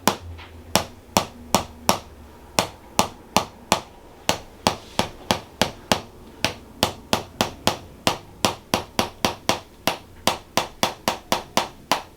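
A chiropractic adjusting instrument tapping at the pelvis in a steady run of sharp clicks, about three a second, quickening to nearly four a second in the second half.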